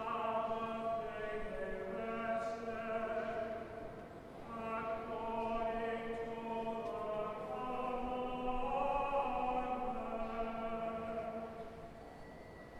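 Choir singing slow, long-held notes in two phrases, with a short break about four seconds in; the singing fades near the end.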